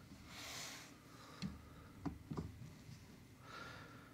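Faint breathing close to the microphone, with a few soft clicks about halfway through.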